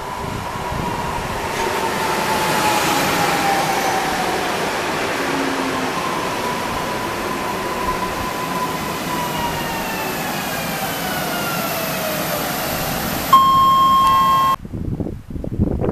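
ED78 (Newag Impuls) electric multiple unit running past along the platform, its traction motor whine falling in pitch as it goes by over the noise of the running train. About two seconds before the end a loud steady tone sounds for just over a second and cuts off abruptly.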